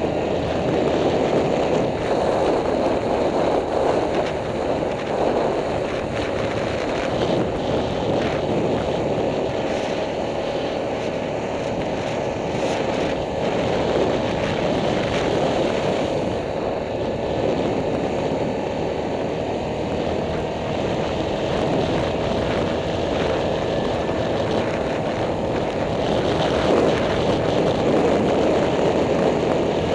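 Yamaha Grizzly ATV's engine running at a steady pace under way, with only small swells in level.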